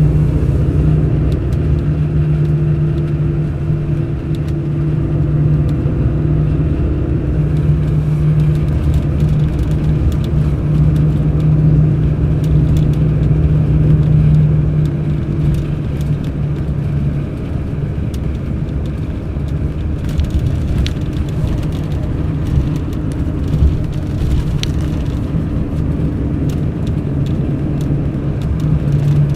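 Diesel engine of a Mercedes-Benz O500 RSD BlueTec5 coach running as the bus drives: a steady low engine drone that eases off about halfway through and picks up again near the end.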